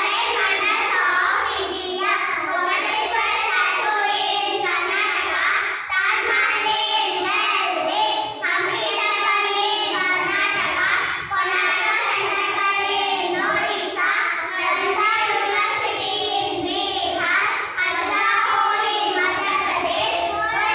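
A small group of young girls singing together in unison, with steady, continuous voices.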